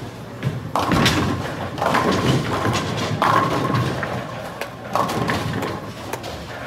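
Bowling alley noise: balls thudding onto and rolling down the wooden lanes and pins crashing, with four loud crashes about a second apart, each ringing on through the hall.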